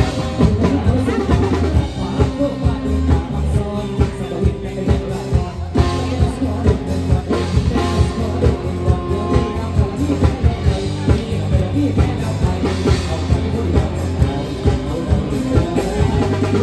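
Live pop music at full volume: male vocalists singing into microphones over a steady drum beat and bass.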